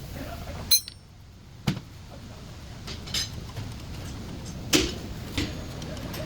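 Several sharp metallic clinks and knocks, about five spread over the few seconds, the first with a brief high ring, over a steady low background hum.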